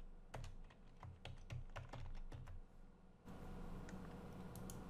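Faint typing on a computer keyboard: a quick run of keystrokes over the first two and a half seconds, then stillness apart from a low hiss.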